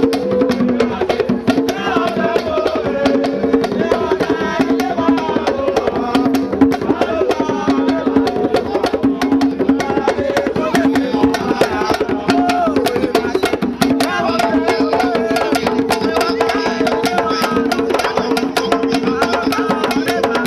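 Music of fast, dense drum and wood-block percussion over a steady two-note drone, with a wavering melody above it.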